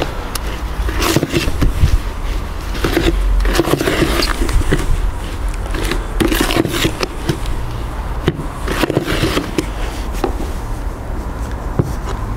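Small trowel scraping and stirring a wet aircrete mix of cement, vermiculite and shaving foam against the sides of a plastic bucket, in irregular strokes.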